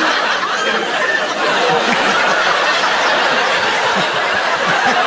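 Studio audience laughing loudly and steadily, many voices at once.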